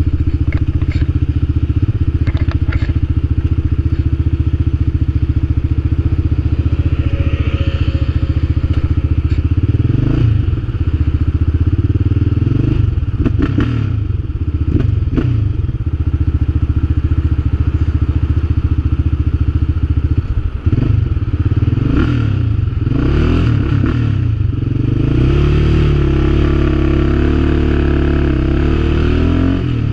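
Yamaha Raptor 700R quad's single-cylinder four-stroke engine running on the move through its freshly repaired exhaust, the revs rising and falling several times, around ten seconds in and again through the middle of the stretch.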